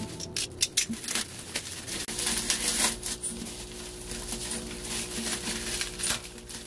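Irregular clicks, taps and crinkles of small objects being handled, over soft background music that comes in about two seconds in.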